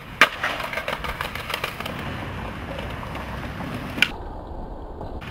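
Skateboard landing with a sharp slap, then its wheels rolling over concrete with small clicks from the pavement joints. About four seconds in, another board snaps sharply once.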